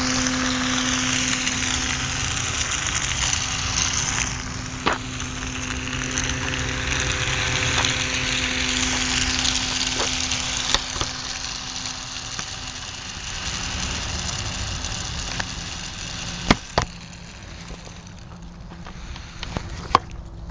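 Small battery-powered electric motor spinning the fan of a homemade air-propelled toy car, running with a steady hum and a rushing haze. The hum drops lower and fades about two-thirds of the way in as the nearly dead battery runs down. A few sharp clicks sound along the way.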